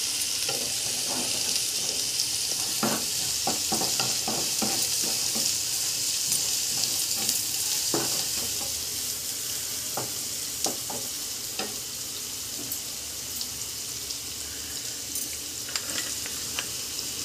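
Chopped onion sautéing in hot oil in a nonstick kadhai, a steady sizzle, with the scrapes and clicks of a wooden spatula stirring it, mostly in the first ten seconds or so. The sizzle eases a little in the second half.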